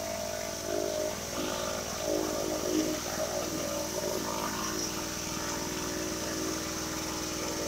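Gas pressure washer engine running steadily on low throttle, with the steady hiss of water spraying from a DeWalt rotary surface cleaner as it spins over wet wooden deck boards at about 2,000 PSI.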